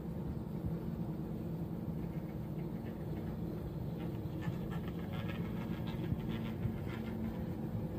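Cable car haul rope running over the sheaves of a support tower, a steady low hum. A light rattle comes about halfway through, as a gondola passes over the tower.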